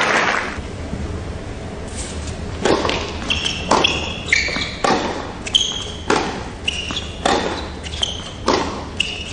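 Tennis ball struck by rackets and bouncing on an indoor hard court, a sharp knock every half-second or so, with short high shoe squeaks between them. Applause dies away just at the start.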